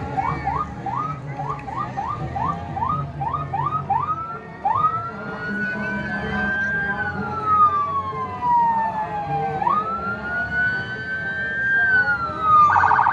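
Electronic siren cycling through its tones: about ten quick rising whoops, then a long wail that rises, holds and falls twice, then a fast warble starting near the end.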